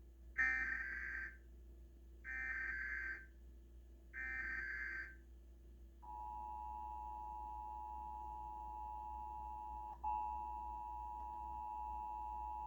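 Emergency Alert System test signal: three short bursts of screechy SAME digital header tones, about two seconds apart, then from about six seconds in the steady two-tone EAS attention signal, briefly broken about ten seconds in.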